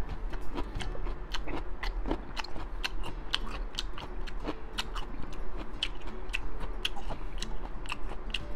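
Close-miked chewing of crunchy pickled daikon radish: a fast, irregular run of sharp crunches, several a second.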